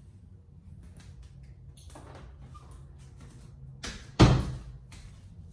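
A door shutting with a single loud thud about four seconds in, after a few faint clicks and rustles.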